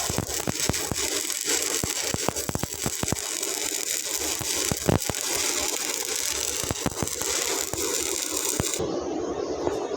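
Stick-welding arc crackling steadily, dotted with irregular sharp pops; the crisp top of the crackle drops away near the end.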